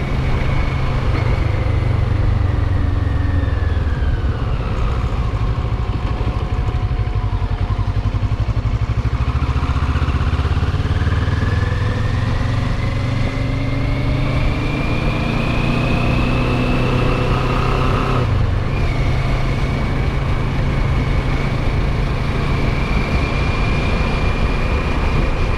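Motorcycle engine running under way, with wind and road rumble. Its pitch falls over the first several seconds, climbs again, breaks off briefly about 18 seconds in, then holds steady.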